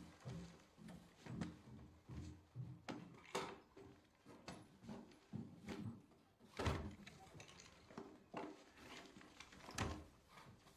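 Scattered knocks and clatters in a quiet room, about half a dozen at uneven intervals, the loudest a little past the middle and near the end.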